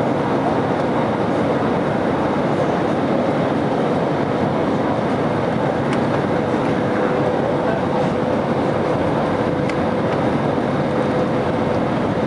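Steady rushing cabin noise inside an Airbus A320 as it comes in to land, the sound of its engines and the airflow, with a faint steady hum under it.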